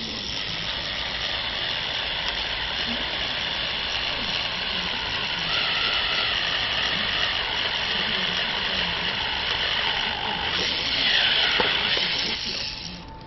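Cordless drill running steadily as its bit bores through a metal flat bar held in a wooden jig. The whine grows louder about ten seconds in, then its pitch falls and it stops near the end.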